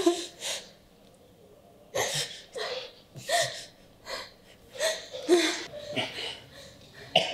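A woman sobbing: a string of breathy, catching sobs and gasps at irregular intervals, about one a second, with short bits of voice in them.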